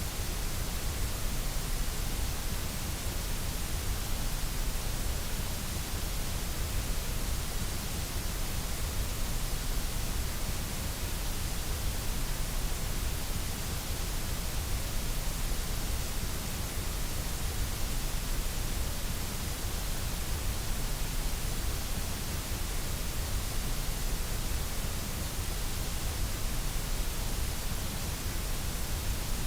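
Steady, unchanging electronically generated white noise: an even hiss with a low rumble beneath it.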